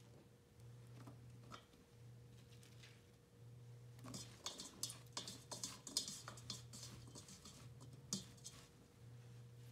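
Pieces of cut bitter melon dropping into a stainless steel pot and being tossed by hand in spice powder, giving soft pattering and light clicks against the pot, starting about four seconds in.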